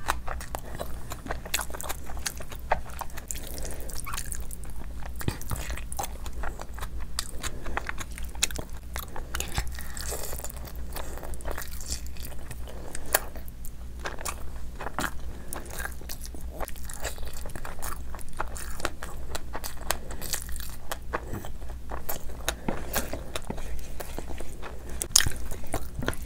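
Close-up eating sounds of a person eating curry and rice by hand: wet chewing with many short lip smacks and clicks, and fingers squishing through the rice and curry, over a steady low hum.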